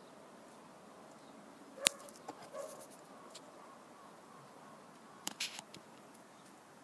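A sharp click about two seconds in, followed by soft rustling, and a short cluster of clicks and rustles a little after five seconds, over a faint steady hiss.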